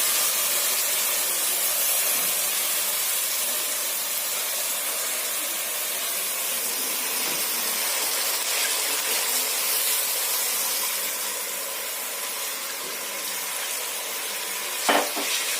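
Onions, garlic, ginger and meat sizzling steadily in hot oil in a cooking pot as the pilau base fries. A short knock near the end.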